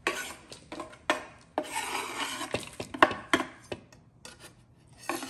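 Large knife scraping chopped dark chocolate off a wooden cutting board into a mixing bowl: rasping scrapes broken by several sharp taps of the blade on the board.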